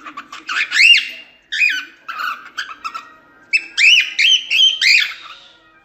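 Cockatiel singing: quick strings of short, arching whistled notes in three bursts, the last and longest ending about a second before the end.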